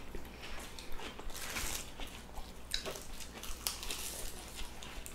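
Several people biting and chewing crisp lettuce leaves and salad vegetables, with many short, irregular crunches.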